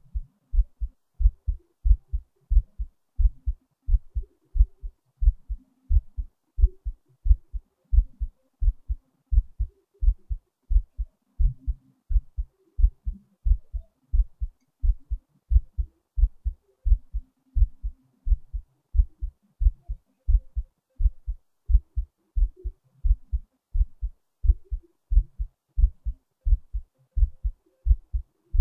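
Heartbeat, a steady, regular rhythm of low, dull thumps.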